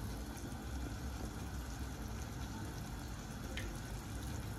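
Pot of noodles at a rolling boil on a gas stove, giving a steady bubbling hiss, with a pan of chicken cooking beside it. A faint light click about three and a half seconds in.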